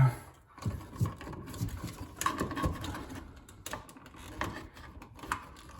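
Scattered light clicks, taps and scrapes of a stiff ground wire being worked onto the ground screw of a GFCI receptacle.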